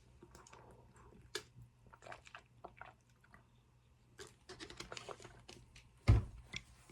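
Faint scattered small clicks and handling noises, with one dull thump about six seconds in.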